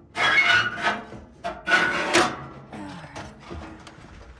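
Scraping and clattering of an electric stove heater's sheet-metal and plastic parts as its inner assembly is pivoted by hand. There are two loud scrapes, one right at the start and one about two seconds in, followed by softer handling knocks.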